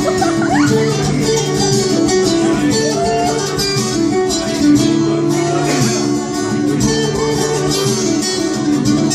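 Instrumental break in a live folk-rock song: plucked and strummed guitar playing a steady rhythmic accompaniment, with no singing.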